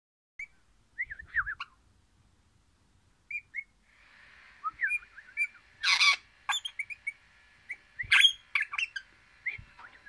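A caged crimson rosella (Pennant's parakeet) chirping and whistling in quick runs of short, bending notes, with two louder, harsher squawks about six and eight seconds in.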